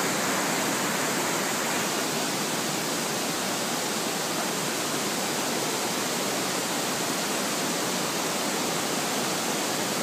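Steady rush of a stream's white water cascading over rocks, an even continuous roar with no breaks.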